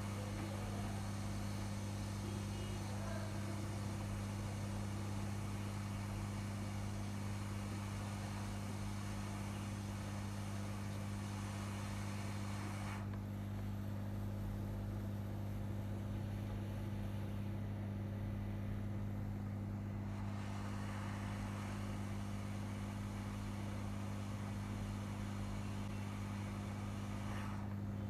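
Hot air rework station blowing with a steady low electrical hum and a hiss of air, as it is used on the laptop motherboard to lift off burnt ICs. About halfway through, the hiss drops away for several seconds and then comes back, while the hum carries on.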